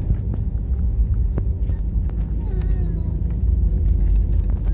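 Steady low rumble inside the cabin of an Airbus A320 airliner, the noise of the engines and the airframe. A short high-pitched voice-like cry rises over it about midway, and there are a few faint clicks.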